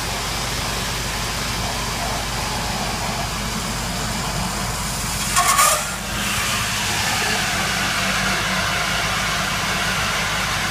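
Steady rush and rumble of water flowing through the valve test-bench pipework at about 80 m³/h. About five and a half seconds in comes a short sharp hiss with a clatter as the relief lever under the latching solenoid is tripped to shut the BERMAD control valve. After that the flow noise sits slightly louder.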